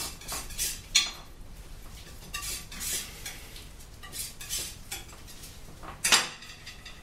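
Palette knife scraping and tapping on a palette while mixing oil paint: a string of short, irregular scrapes, the loudest about six seconds in.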